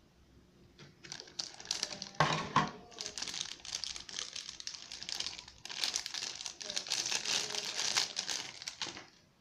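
Packaging crinkling and crumpling as it is handled and opened, starting about a second in, loudest early on and stopping just before the end.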